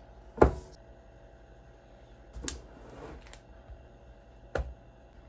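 A few sharp knocks and clunks, roughly every one to two seconds with the loudest about half a second in: kitchen items and containers being handled and set down while cooking ingredients are gathered. A faint steady hum runs underneath.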